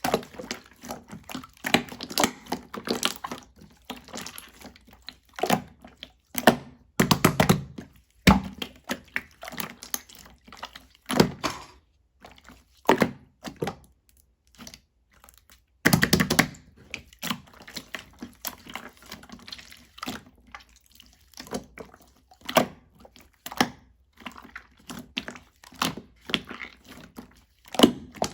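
Slime being squished, stretched and poked by hand: a steady run of sticky clicks and pops, with longer, louder squelches about seven seconds in and again about sixteen seconds in.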